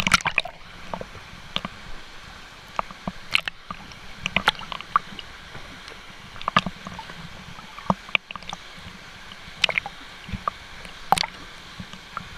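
Water lapping and splashing against a GoPro's waterproof housing held at the surface while swimming, in irregular sharp slaps and gurgles over a steady rush of water.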